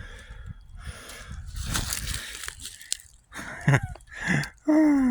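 Rustling noise, then a man's voice making three short wordless sounds, each falling in pitch, in the last two seconds.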